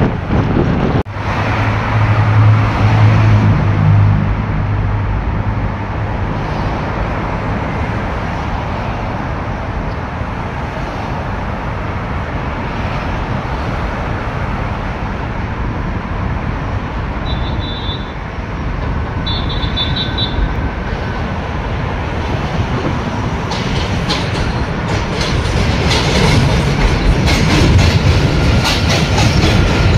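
New York City Subway train running on a bridge track: a steady, loud rumble of wheels and cars. Wheels clicking rapidly over rail joints grow louder in the last several seconds.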